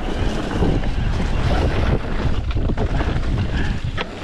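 Wind buffeting the microphone of a mountain bike descending a downhill trail, over a steady low rumble with scattered knocks and rattles from the bike on rough ground.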